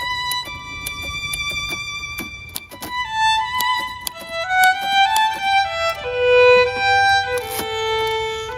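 Background music led by a violin, playing a slow melody of held notes that steps downward toward the end.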